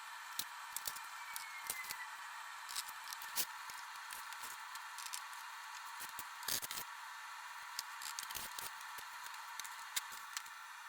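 Scattered light clicks and rustles of hand work on ATV plastic body panels and their fasteners, over a steady thin hiss, with a brief cluster of louder clicks a little past the middle.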